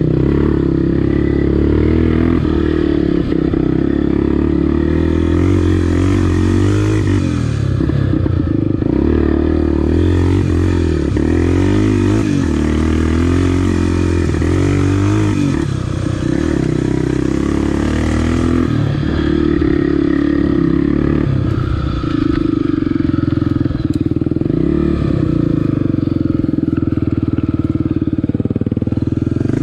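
Honda XR250 Tornado's single-cylinder four-stroke engine running on a dirt-trail ride, its revs rising and falling steadily with the throttle.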